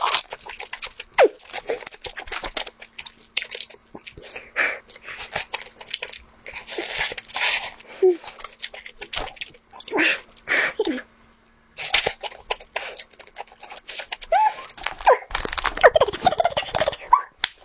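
Close-miked chewing of lobster: rapid, irregular wet mouth sounds with short squeaky glides, pausing briefly around the middle.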